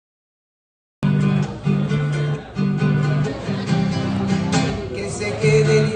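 Acoustic guitar strumming the introduction of a bolero, starting abruptly about a second in out of dead silence.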